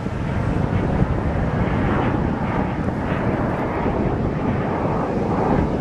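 A Canadair CT-114 Tutor's single turbojet engine, heard as a steady rushing rumble as the jet flies past overhead. Wind buffets the microphone throughout.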